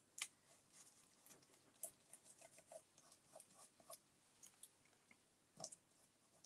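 Near silence, broken by faint, irregular light taps and rustles of a gloved hand rubbing stain onto a file cabinet's drawer front, with one slightly louder tap near the end.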